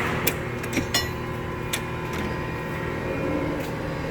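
Homak H2 Pro steel tool chest, drawers open, giving a few sharp metal clicks and clinks, most of them in the first second or so. A steady hum of workplace machinery runs underneath.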